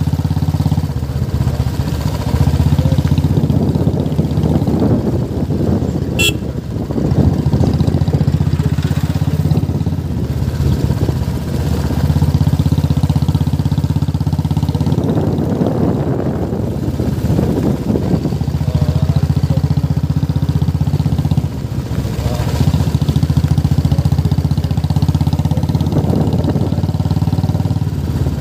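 Motorcycle engine running steadily at low revs close by.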